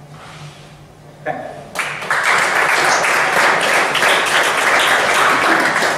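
A small audience applauding: the clapping starts about two seconds in and stays steady.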